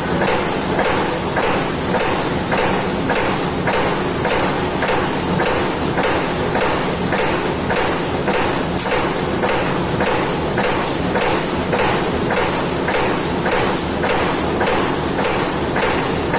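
Amada Pega 357 CNC turret punch press punching sheet metal in a steady rhythm, about two sharp strokes a second, over a constant high-pitched machine whine.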